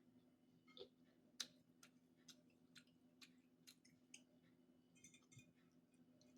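Near silence with faint, regular mouth clicks about two a second, from chewing food with the mouth closed, over a faint steady hum.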